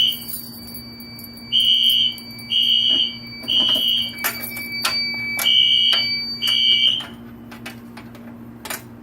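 Fire alarm sounding a high beeping tone in the three-beep temporal evacuation pattern: half-second beeps in threes with a longer pause between groups. A few sharp clicks are heard along with it. It cuts off about seven seconds in, partway through a group.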